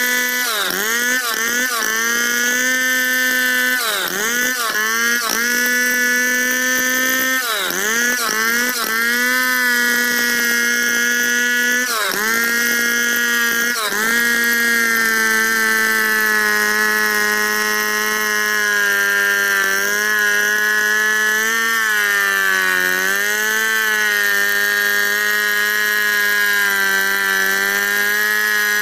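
Large two-stroke Stihl chainsaw at full throttle ripping lengthwise through a log in a freehand milling cut. The engine's high whine dips sharply and recovers again and again during the first half, then holds nearly steady under load.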